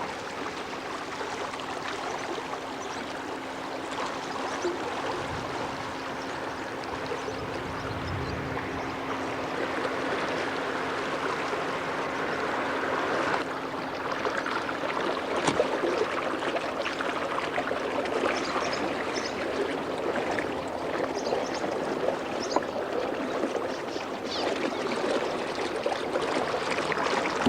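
A flooded creek running high, its water rushing and gurgling steadily, with a faint steady hum underneath.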